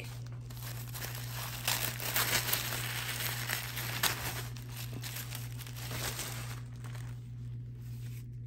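Tissue paper crinkling and rustling as a wrapped item is pulled out of it by hand. The crinkling is busiest about two to three seconds in and thins out near the end.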